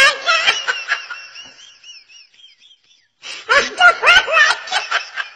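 High-pitched laughing in short repeated pulses that trails off, then another burst of laughter after a pause of about a second.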